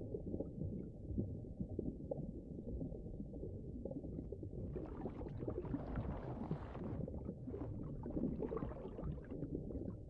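Low underwater rumble with faint scattered ticks and a faint steady hum; a soft hiss swells for about two seconds around the middle.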